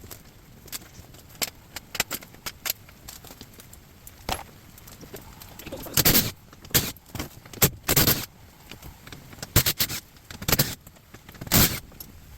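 Metal clanking, clicking and rattling as a scrap appliance is taken apart by hand, with several louder crashing knocks in the second half.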